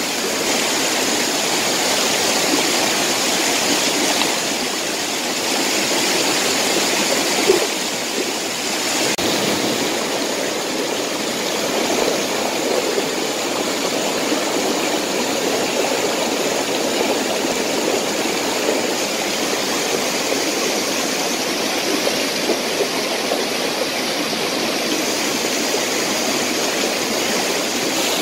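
Shallow mountain river rushing over rocks, a steady wash of water noise, with one brief knock about seven and a half seconds in.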